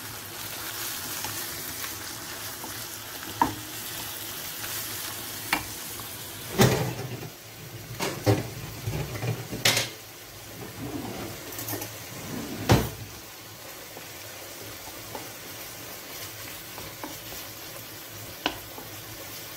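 Minced pork and onion sizzling as they fry in a frying pan and are stirred with a wooden spoon, with a few sharp knocks scattered through.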